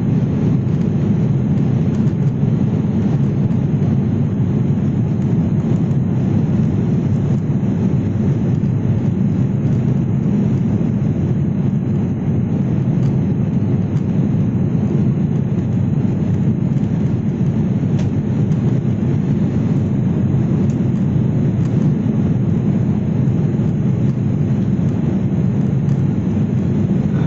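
Passenger aircraft running with a loud, steady low rumble of engines and airflow.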